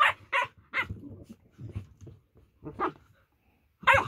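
Two dogs in rough play, one giving about six short barks with low growling between them.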